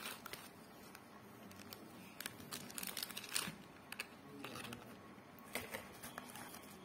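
Faint crinkling of a small plastic packet and scattered light taps and rustles as small cardboard firework packets are handled and set back in a box.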